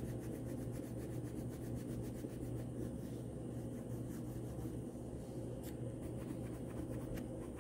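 Orange wax crayon rubbing back and forth on paper in continuous colouring strokes, over a steady low hum.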